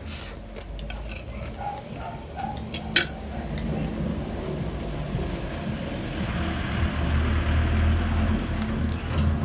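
Close-miked eating of pani puri: a couple of sharp clicks or crunches, then steady chewing that grows louder in the second half.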